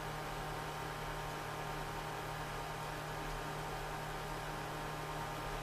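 Steady electrical mains hum with hiss underneath, unchanging throughout; the crochet hook and yarn make no sound that stands out.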